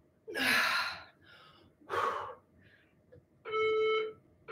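A woman's two hard exhales during dumbbell squats, then an electronic interval timer beeping once about three and a half seconds in, with a second beep starting at the very end: the countdown to the end of the work interval.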